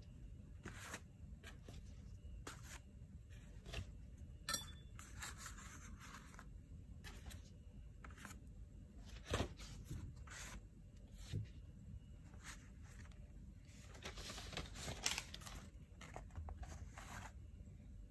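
Faint handling sounds of watercolour paper sheets: scattered light rustles, scrapes and small taps, with a short busier stretch of rustling near the end.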